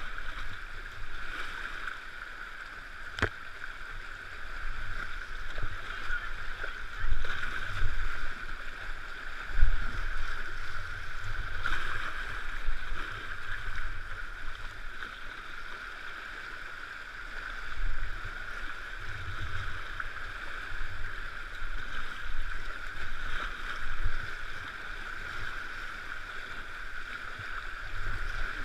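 Steady rush of fast whitewater around a kayak on a small river in flood, with irregular low thumps and splashes as the boat rides the waves and the paddle works, and one sharp knock about three seconds in.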